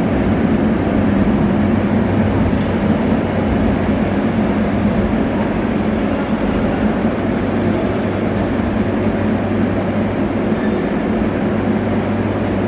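Mumbai suburban EMU local train rolling slowly along the platform as it pulls in, a steady rumble with a low electrical hum under it.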